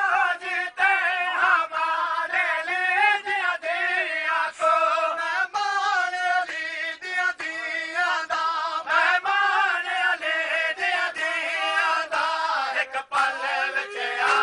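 A group of men chanting a noha, a Shia mourning lament, in unison. It is punctuated by regular chest-beating strikes of the matam, roughly one a second.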